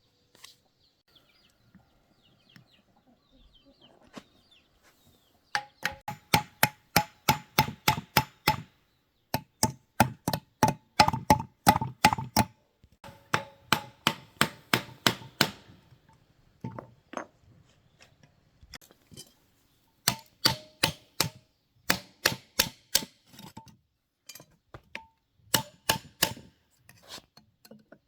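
Hammer knocking on metal motor parts in runs of quick, even blows, about three a second, each with a short metallic ring, broken by short pauses.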